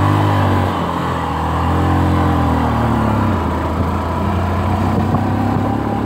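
Engine of a moving road vehicle running steadily, its pitch rising and falling slightly, with road and wind noise.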